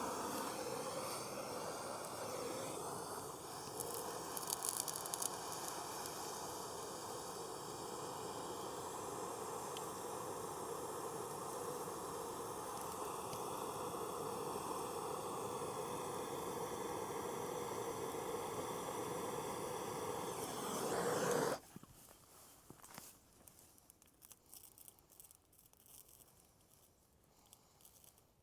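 Flames burning in a freshly lit brush pile: a steady rushing hiss that cuts off suddenly about 21 seconds in, followed by faint scattered crackling.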